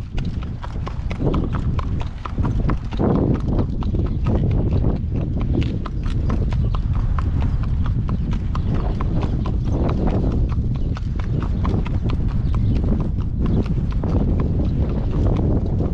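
A ridden horse's hooves clip-clopping on pavement at a steady walk, over a steady low rumble of wind on the microphone.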